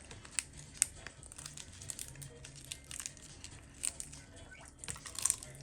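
Crinkling and tearing with irregular sharp clicks, the loudest a little under a second in and again about five seconds in.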